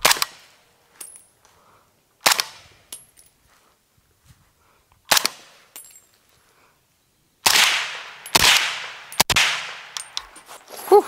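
Suppressed rifle fired six times with its suppressor run wet: three subsonic shots two to three seconds apart, then three quicker supersonic shots with a longer ring-out. A short rising tone follows the last shot.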